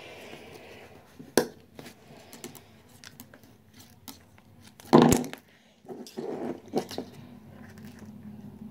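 Plastic zip-tie tails being snipped off with a cutter, with a sharp snip about a second and a half in and a louder crunch about five seconds in, amid plastic handling and rustling.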